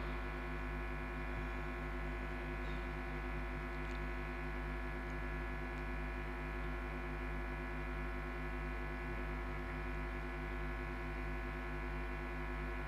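Steady electrical mains hum and buzz: a low tone with many even overtones, unchanging in pitch and level.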